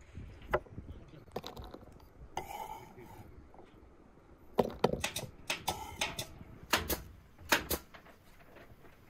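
Kitchen knife chopping garlic on a wooden cutting board and scraping it off the blade into a wooden bowl: scattered taps and a brief scrape, then a run of sharp knocks and clinks in the second half.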